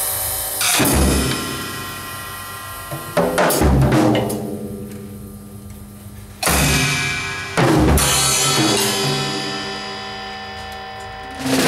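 Drum kit played in sparse, irregular accents: about six heavy strikes with a deep bass-drum or tom thump, each mixed with cymbal crashes and left to ring and die away over a couple of seconds.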